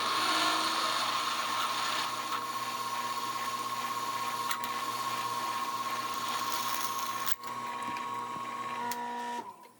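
Milling machine spindle running a drill bit into a metal plate: a steady whine with cutting hiss that stops shortly before the end.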